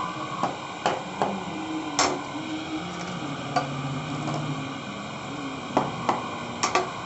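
Wood lathe hum that wavers in pitch as the spindle runs up and slows, with about eight sharp, irregular knocks of a turning tool against the wooden blank.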